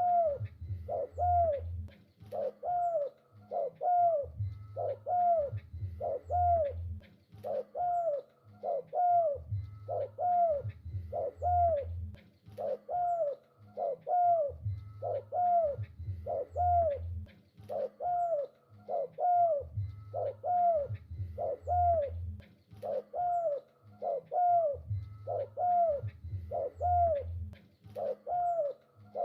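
Spotted dove cooing over and over in an even, unbroken series of short arched coos, with deeper notes coming back in groups about every five seconds.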